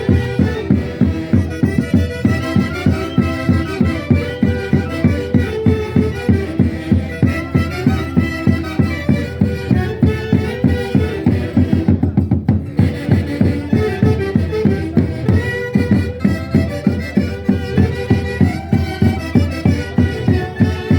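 A band playing music with held melodic notes over a steady beat of about two to three pulses a second; the upper range briefly thins out about halfway through.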